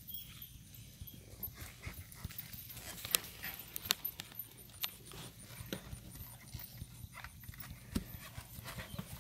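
Hoofbeats of a shod bay mare on a packed dirt track, an irregular run of clops and knocks as she is ridden past, a few sharper strikes about three to four seconds in and again near the end.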